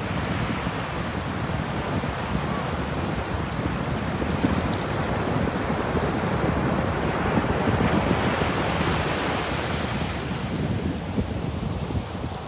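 Ocean waves breaking and washing on a beach, a continuous rushing surf that swells a little past the middle and eases near the end.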